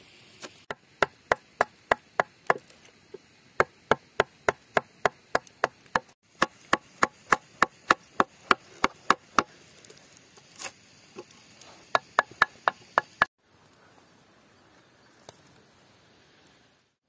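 Steel carving gouge being struck into a log to hollow out a wooden plate, a run of sharp, rhythmic knocks about three a second. The knocking stops suddenly about 13 seconds in.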